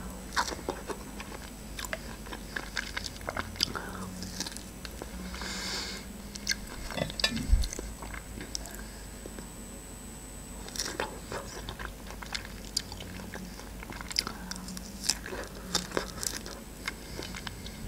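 A person biting into and chewing fresh strawberries dipped in melted chocolate, with many short sharp mouth clicks.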